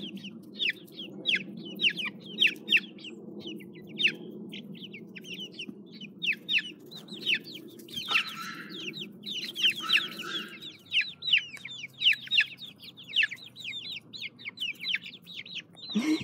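Young chickens peeping: a rapid, overlapping string of short, high peeps that fall in pitch, with a couple of longer, louder calls about eight and ten seconds in.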